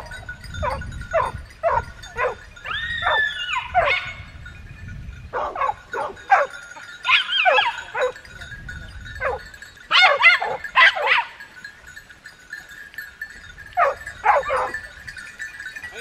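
A pack of hunting dogs barking and yelping in overlapping, falling calls that come in clusters, with one longer drawn-out howl about three seconds in.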